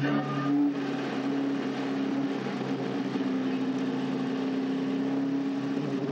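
Caterham Seven race car's engine running steadily at an even pitch, briefly louder about half a second in.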